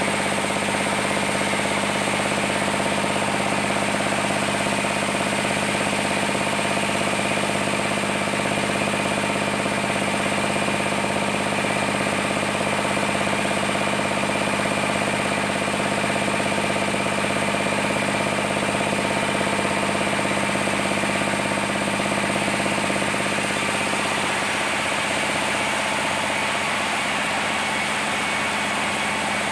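Sawmill machinery running with a steady engine hum. Some of its tones drop away about three-quarters of the way through, while the overall level stays the same.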